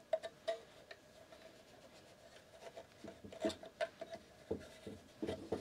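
Light knocks, clicks and rubbing from hands working a wooden bookbinding sewing frame, with its linen tapes and brass sewing keys. There are a couple of sharp clicks at first, then a busier run of small knocks in the second half.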